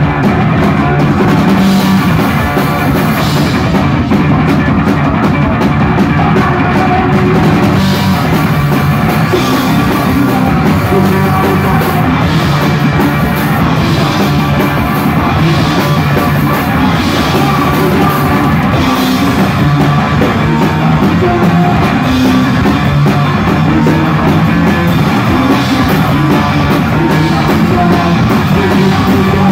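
Live rock band playing loud: an electric bass guitar and a drum kit with steady cymbal and snare hits, played on stage through a PA.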